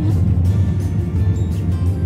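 Background music with a steady low drone underneath.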